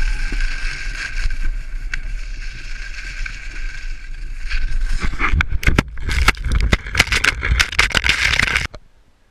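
Wind rushing over an action camera's microphone during fast skiing, with a low rumble. From about five seconds in, a dense run of sharp scrapes and knocks comes over the rush, and the sound cuts off abruptly near the end.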